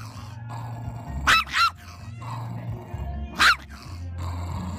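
Small chihuahua-type dog barking in short, sharp yaps: two close together about a second and a half in, and one more about three and a half seconds in, over background music.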